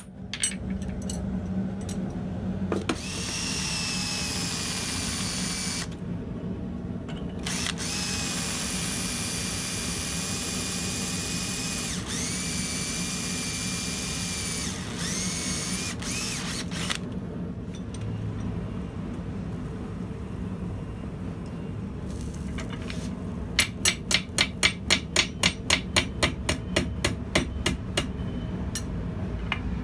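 Electric drill boring into a forged steel piece held in a vise, its motor whining in two long runs with a short pause between. About six seconds before the end, a steady series of hammer blows on metal begins, about three a second.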